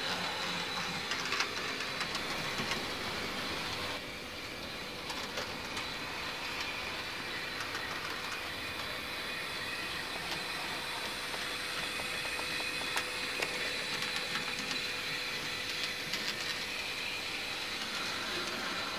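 OO gauge model steam tank locomotive (Sonic Models Robinson A5) running along the track: a steady motor whine and hum with light clicking of the wheels over the rail joints.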